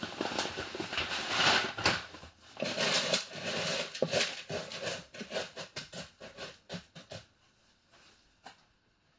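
Granular mineral substrate poured from a plastic bag into a plastic self-watering planter, a steady hiss of falling grains with the bag crinkling. Then the grains rattle and scrape as a hand spreads them level, with scattered clicks that die away about seven seconds in.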